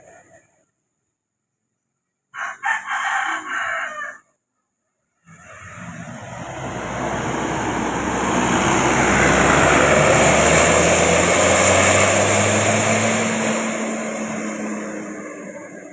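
A large bus passing close by: a broad rush of engine and tyre noise that swells over several seconds, peaks, then fades, with a low engine tone showing near the end. About two seconds in there is a short burst of pitched multi-tone sound lasting about two seconds.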